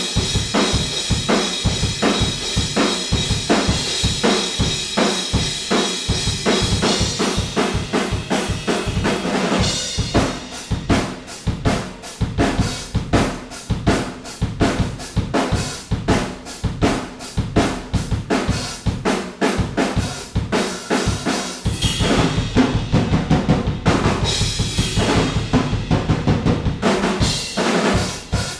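Acoustic drum kit played with kick, snare and cymbals, recorded raw by an Oktava MK-012 omni microphone placed outside the live room. Cymbals wash over the beat at first, and the hits come fast and dense from about ten seconds in. Later the playing turns heavier and lower with little cymbal.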